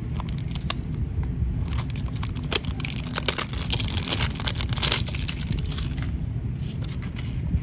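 Clear plastic shrink-wrap being torn and peeled off a small cardboard box, with many sharp crinkling crackles that are densest in the middle. A steady low rumble runs underneath.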